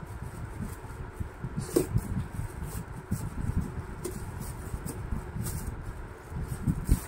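Cardboard box and the plastic bag around a grill sandwich maker being handled by gloved hands as the appliance is worked out of the packaging: irregular rustling and low bumps, with a sharper knock about two seconds in and a louder one near the end.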